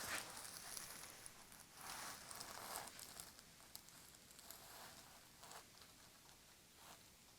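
Faint rustling and soft handling sounds as a patient's head and neck are held and positioned on a chiropractic table, with a few brief soft swishes spread through and no loud crack.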